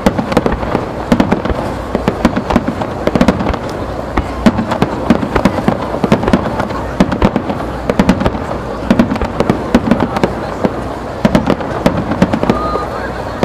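Star mine fireworks barrage: a rapid run of sharp aerial shell bursts, several bangs a second overlapping on a continuous low rumble, thinning a little near the end.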